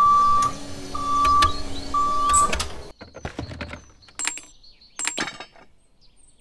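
Three short, steady electronic beeps about a second apart over a low hum, then the hum drops out and a few sharp clicks follow.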